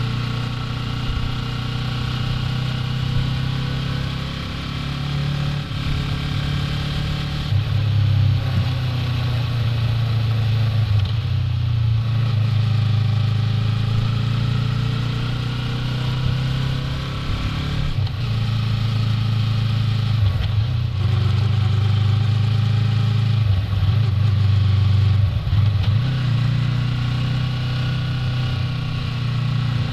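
Yamaha R3's 321 cc parallel-twin engine running while riding, its note rising about a quarter of the way in and falling and rising again a few times in the second half as the throttle changes.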